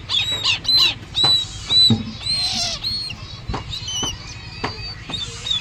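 Downy owl chicks calling as they are hand-fed: a string of short, high, arched chirps, with two hissing bursts a little after one and two and a half seconds in, and a few sharp clicks.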